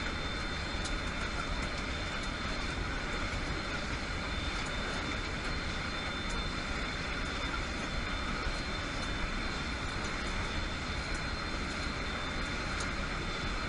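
Steady drone of a transport aircraft's engines and rushing air, heard from inside the cabin at the open rear ramp during a paratroop drop, with a thin high whine held steady on top.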